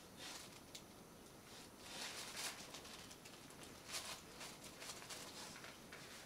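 Faint rustling of tissue pattern paper and fabric as a needle and thread are drawn through by hand, in a few short, soft swishes.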